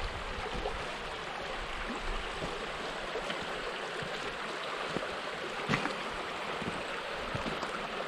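Shallow freestone river running over cobbles and riffles: a steady rush of flowing water, with one brief tap about two-thirds of the way through.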